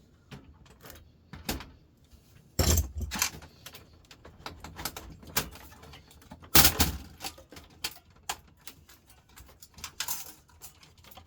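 Hard plastic and metal parts of a laser printer clicking, knocking and clattering as it is taken apart by hand, with two louder clatters about two and a half seconds and six and a half seconds in.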